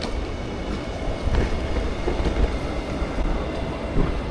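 Train running: a steady low rumble and rushing noise with a few faint clicks.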